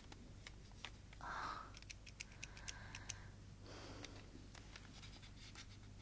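Quiet room with a faint low hum, scattered small clicks and two brief soft rustles, about a second in and again near four seconds.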